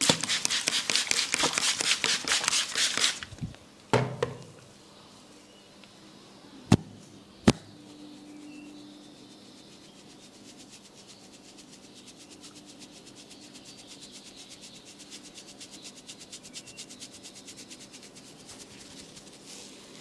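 Hands working a person's head in a massage: about three seconds of fast, loud rubbing strokes, then a single knock, then two sharp snaps less than a second apart. Faint, quick, even rubbing strokes follow for the rest.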